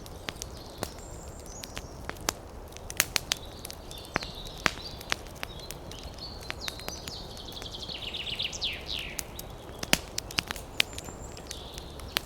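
Wood fire in a fireplace crackling, with sharp, irregular pops and snaps over a soft steady rumble of the flames. A brief high, fluttering whistle falls in pitch about eight seconds in.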